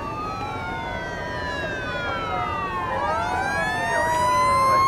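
Several fire engine sirens wailing at once, their pitches slowly rising and falling and crossing one another. They grow louder near the end.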